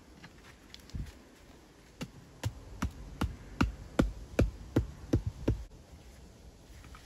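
A run of about ten sharp hammer blows on stone, roughly two and a half a second, starting a couple of seconds in, after a single knock.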